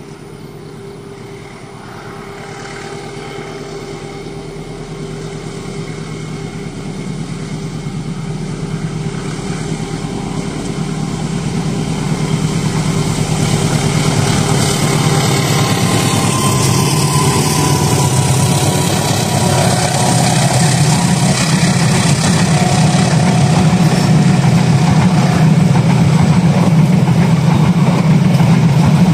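Diesel locomotive engine growing steadily louder as a passenger train approaches, a low drone that builds throughout.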